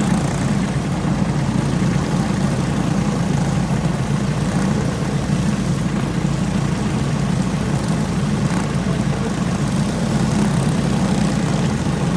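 Several go-kart engines idling together in a steady, unbroken drone while the karts sit lined up on the grid.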